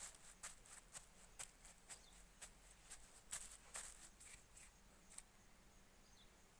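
A run of faint, irregular sharp clicks and crackles, several a second, stopping about five seconds in.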